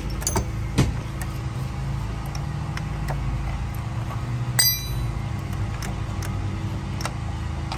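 Hand tools working metal parts loose on a diesel engine's governor housing: a few light metal clicks, then one sharp ringing clink about halfway through, over a steady low hum.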